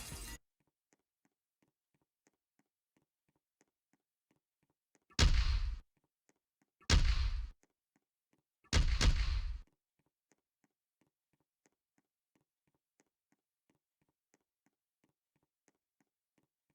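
Three loud, booming blast sound effects about a second and a half to two seconds apart, each with a heavy low end and a quick fade. A shorter, quieter burst sounds right at the start.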